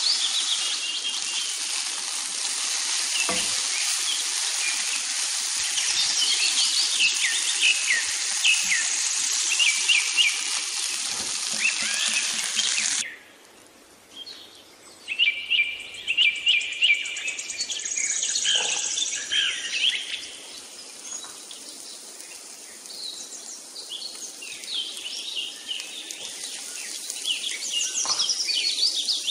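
Small birds chirping in quick repeated calls, over a steady hiss that cuts off suddenly about halfway through.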